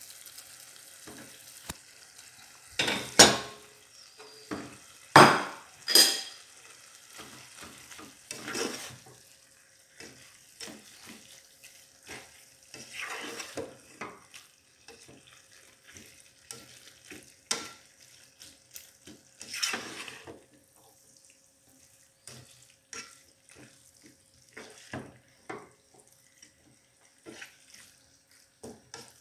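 A spatula stirring shredded radish in a metal saucepan, scraping and knocking against the pot over a faint sizzle of frying. There are a few loud clatters in the first six seconds, then softer scrapes and taps every few seconds.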